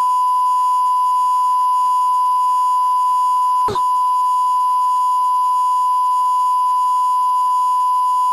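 A steady, pure, high beep tone held for several seconds, broken for an instant about four seconds in, like a censor bleep or test tone.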